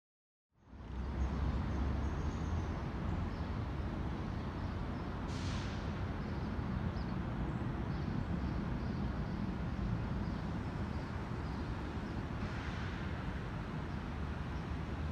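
Outdoor city ambience: a steady low rumble of distant traffic that fades in about half a second in, with two faint brief hisses about five and twelve seconds in.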